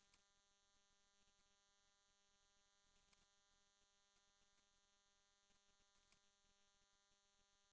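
Near silence: only a faint steady electrical hum and hiss.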